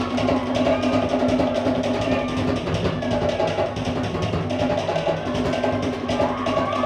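Cook Islands drum ensemble playing a fast, driving dance beat, with dense rapid strikes that carry on without a break.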